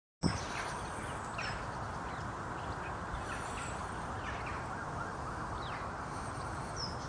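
Steady outdoor background noise with faint, short bird calls scattered through it; no deer calls.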